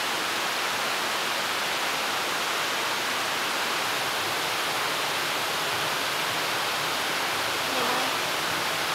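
Steady rushing of flowing stream water, an even hiss that does not change.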